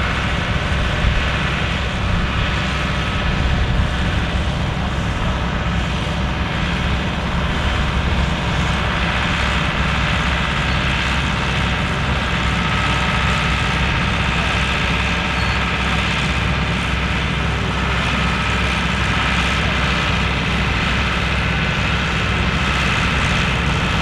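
Case International tractor's diesel engine running steadily as it pulls a mounted plough.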